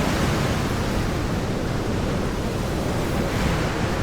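Ocean surf washing steadily, an even rush of noise with no distinct wave breaks.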